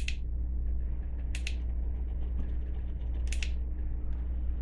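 Three short clicks, one to two seconds apart, from a battery headlamp's push-button switch being pressed to step through its light modes, over a steady low hum.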